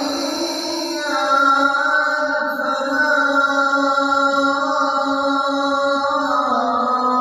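A voice singing in long, held notes, stepping to a new pitch about a second in and again near the end.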